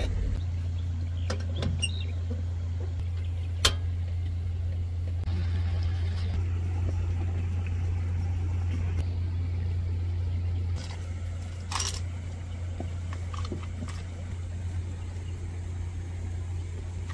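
A few sharp metallic clinks from an aluminium moka pot being handled and screwed together, the loudest a single clink about three and a half seconds in, over a steady low hum. Another clink comes about twelve seconds in.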